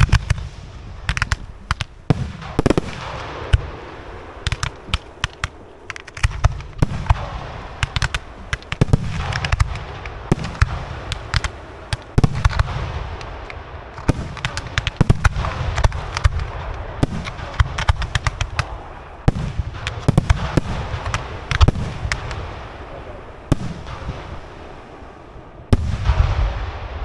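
Fireworks display: a dense, continuous run of sharp crackling reports and shell bursts over repeated deep booms.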